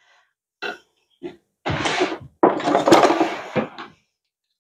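A knife scraping mashed potato off a metal potato masher, with utensils rasping and clicking against a glass mixing bowl: a couple of short scuffs, then two longer scraping stretches with a sharp click in the middle.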